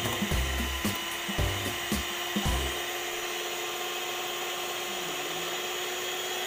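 Scarlett 7-speed electric hand mixer running in its stand over a stainless bowl, its motor giving a steady whine. For the first three seconds a low knock comes about twice a second, then stops and the whine goes on alone.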